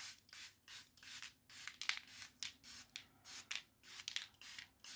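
Pump-spray bottle of glow setting mist being sprayed at the face over and over: a quick series of short hissy spritzes, about three a second.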